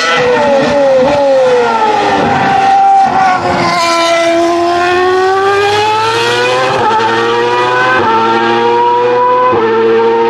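Formula 1 racing engine at high revs: the engine speed falls with a few stepped downshifts over the first few seconds, then climbs steadily as the car accelerates, with short steps at gear changes near the end.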